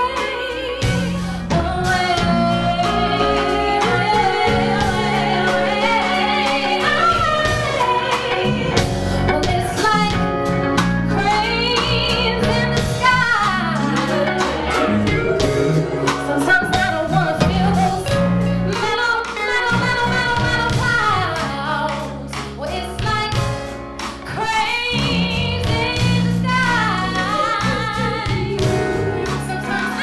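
Live neo-soul performance: a woman sings lead with vibrato and sliding runs over a band of keyboard, electric bass and drums. The music drops briefly softer about two-thirds of the way through.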